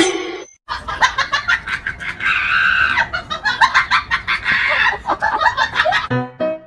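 Chickens clucking and squawking in a fast, busy run of calls, cut off near the end as piano music starts.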